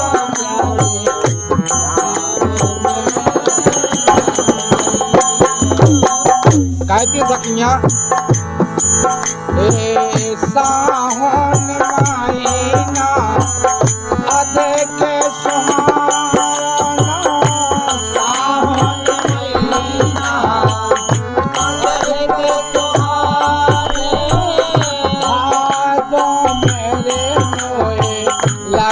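Bundeli Kartik folk devotional song: harmonium and dholak playing with a steady jingling beat of small hand cymbals, and voices singing the gliding melody.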